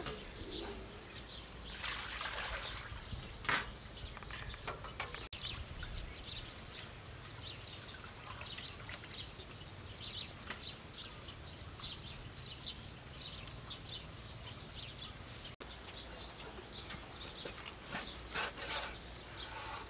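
Hands peeling raw shrimp, with small crackles and rubbing from the shells, then a cleaver slicing through squid on a wooden chopping board near the end.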